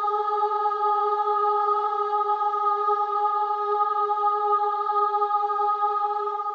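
A long sung 'aaah', a voice or voices held on one steady high note without a break, like a choir 'ahhh' sound effect.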